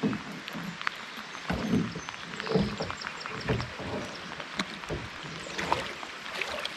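Scattered light taps and clicks from handling a spinning rod and fishing line in a drift boat, over the faint hiss of steady rain on the river.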